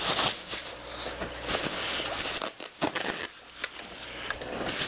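Packaging being opened by hand: rustling and crinkling, with scattered small clicks and taps.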